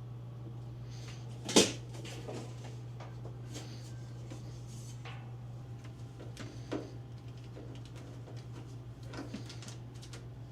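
Hands working a drive belt into a dryer cabinet: scattered knocks, taps and rubbing against the metal panels and drum, with one sharp knock about a second and a half in. A steady low hum runs underneath.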